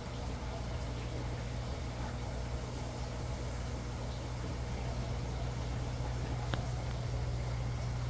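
Steady low hum with an even hiss from running aquarium equipment, with a single faint click about six and a half seconds in.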